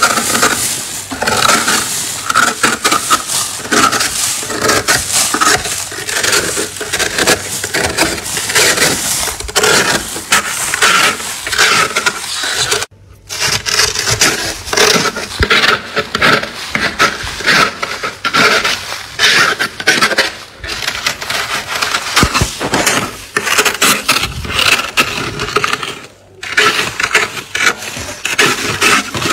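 Thick frost build-up inside a freezer being scraped off with a scraper blade: a fast, continuous run of crunchy scraping strokes, broken by two short gaps about 13 and 26 seconds in.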